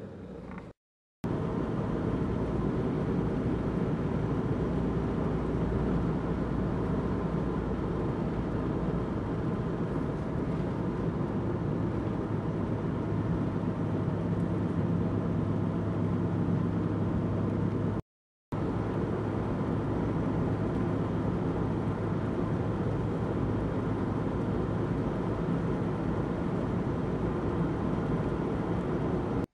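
Steady road and engine noise of a car driving, heard from inside the cabin, with a low steady hum under it. The sound drops out completely for a moment twice, about a second in and again about halfway through.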